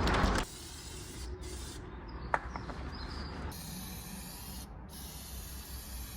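Plasti Dip being sprayed onto a plastic van bumper: a loud spray hiss that cuts off about half a second in, then a fainter steady hiss with a single sharp click a couple of seconds later.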